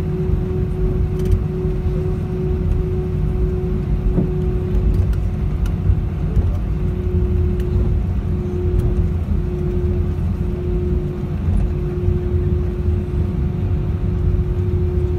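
Airbus A320ceo cabin noise while taxiing: a steady low rumble from the engines at idle and the aircraft rolling on its wheels, with a constant hum running through it.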